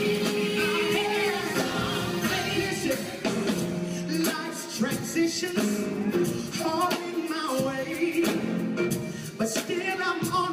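Live band playing a song: a male lead singer with female backing vocals over drum kit and electric guitar, with steady drum and cymbal hits.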